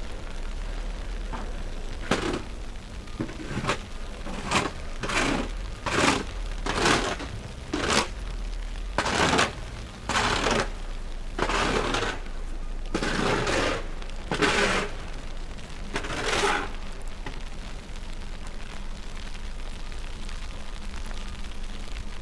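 Footsteps crunching in snow at a steady walking pace, a little over one step a second, over a steady low rumble. The steps stop about three quarters of the way through.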